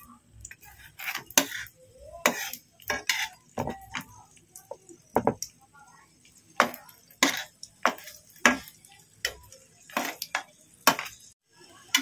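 Steel spatula tapping and scraping against a non-stick frying pan as mughlai parathas frying in oil are turned. It makes a string of short, sharp clicks at uneven intervals, a dozen or so in all.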